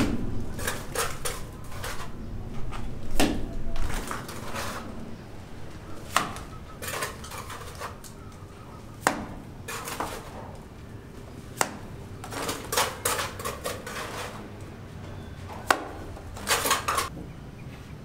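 Mason working mortar with hand tools: irregular metallic clinks and short scrapes against a bucket and a concrete wall, coming in clusters every few seconds with a few sharp single clicks.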